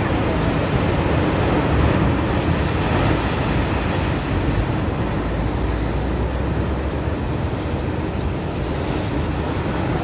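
Rough ocean surf breaking and washing onto a beach, a steady rush of waves, with wind rumbling on the microphone.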